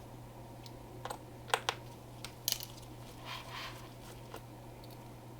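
A few scattered light clicks and taps of small tools and laptop parts being handled on a workbench, with a brief soft rustle a little after the middle, over a steady low hum.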